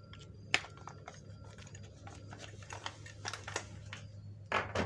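Clicks and clatter of the plastic parts of an opened three-pole molded-case circuit breaker being handled. There is a sharp click about half a second in, scattered small clicks later, and a louder rattle near the end, over a low steady hum.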